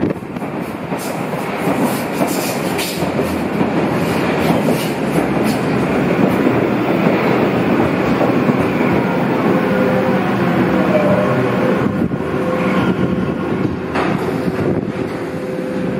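Berlin U-Bahn train running into the station out of the tunnel and past at speed, with wheels clattering over the rail joints. From about halfway on it slows, and a steady whine rises over the rumble as it brakes toward a stop.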